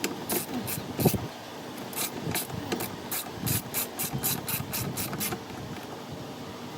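A run of short scraping clicks, like a hand tool or parts being worked on an appliance, about four a second in the middle stretch and stopping a little over five seconds in.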